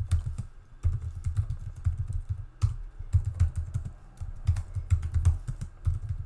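Typing on a computer keyboard: quick runs of keystrokes broken by short pauses, each keypress with a low thud.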